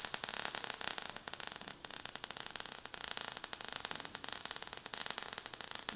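Crackling, fizzing sound effect of burning sparks, a steady dense patter of tiny clicks over a hiss.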